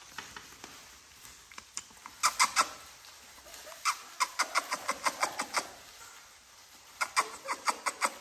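Three-week-old American Bully puppies squeaking and yelping in short, high-pitched cries. The cries come in three quick runs of several yelps each.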